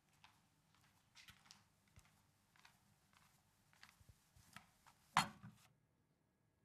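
Faint scattered taps and rustles of small handling, with one louder knock about five seconds in.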